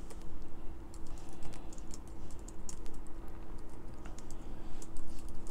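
Typing on a laptop keyboard: a quick, uneven run of key clicks as a line of text is entered.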